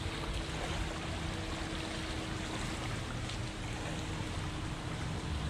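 Small waves lapping on a sandy shore, with wind rumbling on the microphone. A faint steady hum runs under it and fades out about four seconds in.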